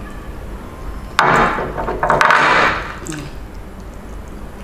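Two loud, harsh slurps, about a second apart: lips sucking gbegiri and ewedu sauce off the fingers.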